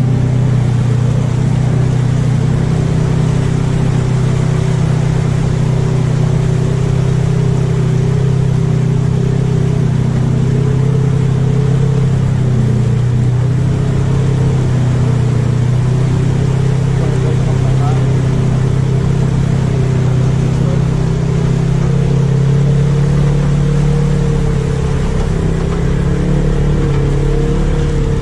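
Side-by-side UTV engine running steadily while driving on a dirt trail, a constant low drone that holds nearly the same pitch throughout and eases slightly near the end.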